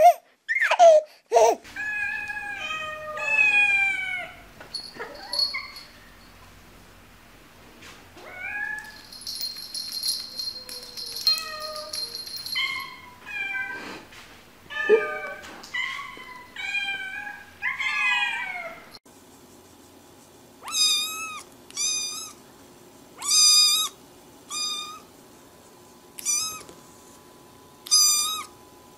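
Domestic cats meowing in turn, with long meows that bend up and down in pitch. From about two-thirds through, a young black kitten gives a run of short, high meows, about seven of them, one every second or so.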